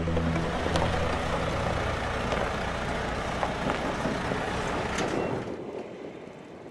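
A MAN concrete mixer truck's diesel engine and tyres on gravel as it drives through a yard: a steady, noisy rumble that fades near the end.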